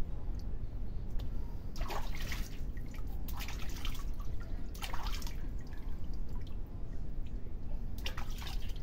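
Water splashing and dripping in a steel basin as hands scoop and rub water through a small dog's wet fur during a bath, in a few short splashes over a steady low rumble.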